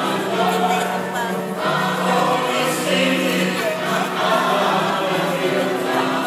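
Choir singing, holding notes for a second or two before moving to the next.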